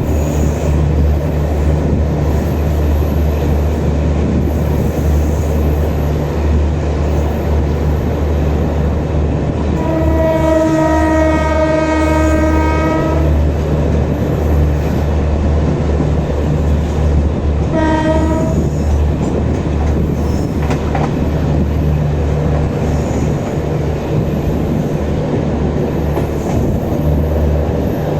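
End-on-generation power car's diesel generator running with a steady low drone, over the rumble and clatter of a fast-running train heard from inside the coach. About ten seconds in, the WAP-7 electric locomotive's horn sounds for about three seconds, and a short honk follows near the 18-second mark.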